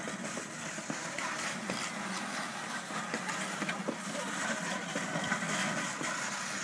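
A steady engine-like hum with a hiss, with a few light knocks and scrapes from hockey skates and a plastic milk crate being pushed across the ice.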